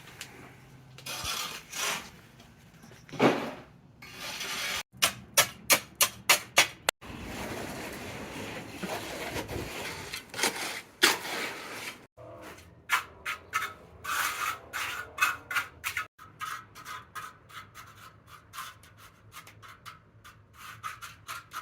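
Repeated scraping and rubbing strokes on a hard surface, in several short stretches that break off abruptly. A run of sharp, loud strokes comes about five seconds in, and a quicker rhythm of short strokes runs through the second half.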